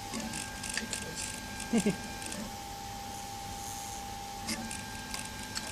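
A 3D printer printing, its stepper motors giving steady whining tones that break off and resume a couple of times as the print head changes moves.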